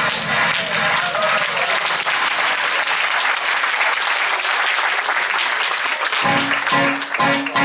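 Audience applauding. About six seconds in, music with a regular strummed guitar rhythm starts.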